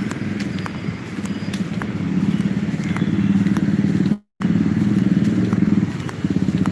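Road traffic with a motor vehicle engine running close by, a steady low drone with a fast pulse and light ticking over it. All sound cuts out for a moment a little past the middle.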